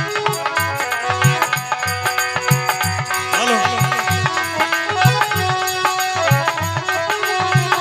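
Instrumental folk devotional music: sustained held melody notes over a hand drum playing a steady rhythm, with bass drum strokes bending down in pitch about three seconds in.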